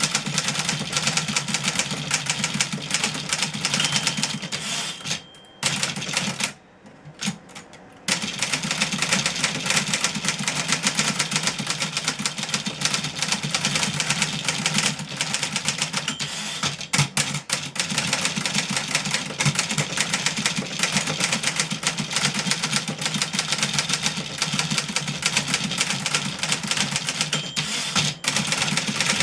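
1963 Remington Model 11 portable typewriter being typed on at speed: a dense, fast clatter of keystrokes, with two short breaks in the typing about five and seven seconds in.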